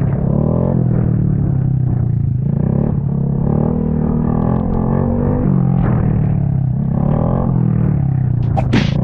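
Honda Grom's small single-cylinder engine running and being revved up and down over and over, its pitch rising and falling. There is a short, sharp high squeal near the end.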